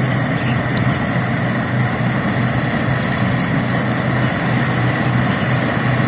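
Combine harvester running steadily while it cuts a rice crop: a continuous low engine hum with an even mechanical drone over it.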